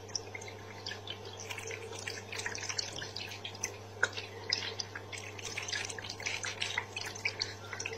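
Electric pet water fountain running: a small stream of water trickling and splashing into the bowl, over a steady low hum.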